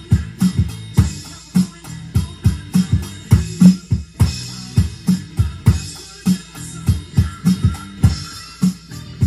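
Electronic drum kit played in a fast, driving rock beat, with kick and snare strokes coming in quick succession under cymbal crashes and rides.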